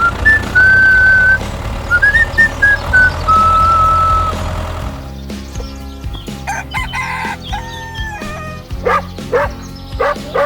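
Background music: a whistled melody of held and gliding notes over a steady low hum, changing about halfway through to a busier tune with short, rising, yelp-like calls near the end.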